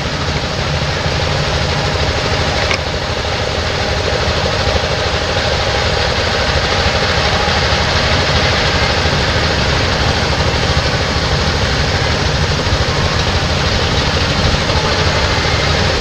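A heavy engine running steadily, with a continuous low rumble that changes little.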